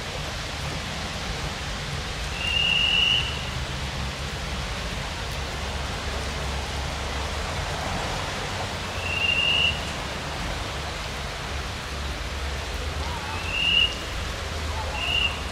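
060-EA1 electric locomotive shunting, a steady rushing hiss over a low hum from its running equipment. Four short, high squeals cut through, about 2.5, 9, 13.5 and 15 seconds in.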